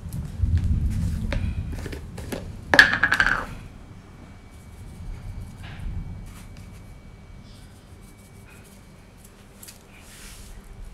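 Small clinks and knocks of a plastic spoon against a plastic jar and bowl as salt is sprinkled over raw meat, with a dull rumble in the first two seconds and one sharp clack about three seconds in.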